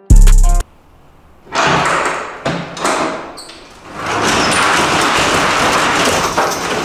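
Music with a heavy bass note cuts off just after the start. Then the rear roll-up door of a box truck is unlatched with a few knocks and slides up with a steady rattle.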